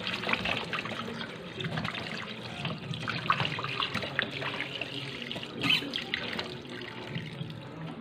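Tap water running and splashing into a plastic bowl in a stainless steel sink as frozen chicken is rubbed and rinsed in it by hand, with small splashes and knocks throughout.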